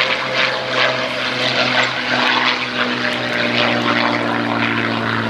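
Hispano Buchon's Rolls-Royce Merlin V12 engine and propeller droning steadily as the fighter flies past, with a slight shift in pitch about two seconds in.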